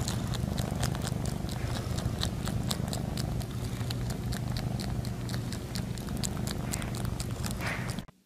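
A cat purring steadily, with many sharp clicks over the purr. It cuts off abruptly about eight seconds in.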